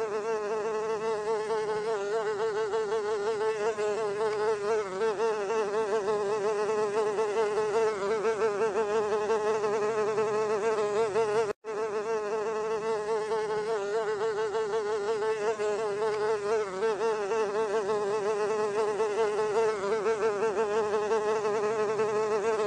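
A housefly buzzing in flight: one continuous, steady buzz whose pitch wavers slightly. It cuts out for a split second about halfway through.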